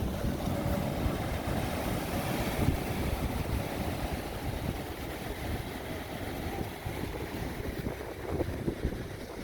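Wind buffeting the microphone in an uneven low rumble, over the steady wash of ocean surf.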